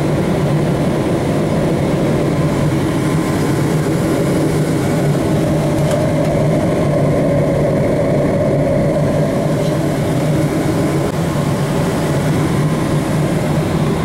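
Oil furnace running on stage-two heat: the oil burner firing and the blower pushing air through the ductwork, a loud, steady rumble with a low hum.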